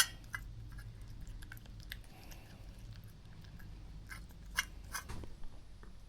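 Cat eating: faint chewing and small clicks, with a couple of sharper clicks about four and a half and five seconds in.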